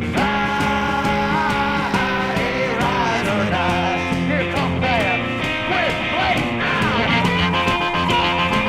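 Rock music with a steady drum beat, playing under the closing montage.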